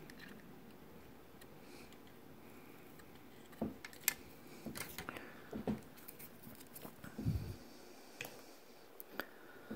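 Faint room tone, then from about three and a half seconds in a scattering of small clicks and taps. These are handling noises from working a soldering iron and wires inside a tube radio's metal chassis.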